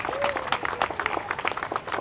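Audience applauding: many overlapping hand claps.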